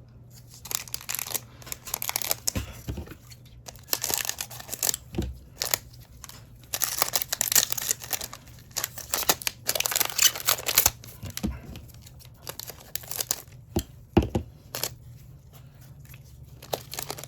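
A trading-card pack being torn open and its wrapper crinkled: a run of noisy rips and rustles over several seconds, then sparser light rustles and taps as the cards come out.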